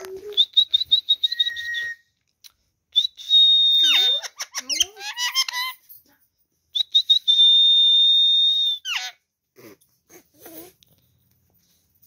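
Indian ringneck parakeet whistling: a quick run of short high notes, then two long steady high whistles, each ending in a falling glide, with a burst of chattery calls between them.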